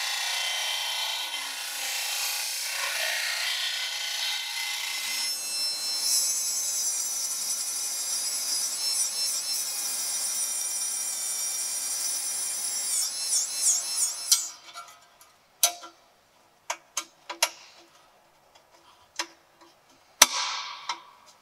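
Disc sander grinding the edge of a stainless steel ring. About five seconds in it gives way to the high whine of a pencil die grinder deburring the ring, its pitch wavering as the bit is loaded. Near the end come a few sharp metal clicks as the ring is set into the steel exhaust pipe.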